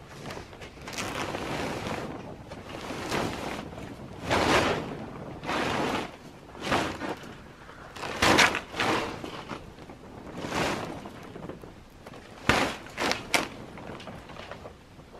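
Weathered Shelterlogic tarp cover dragged over its metal tube frame in a series of tugs: about a dozen rustling, crinkling swishes, each under a second, some louder than others.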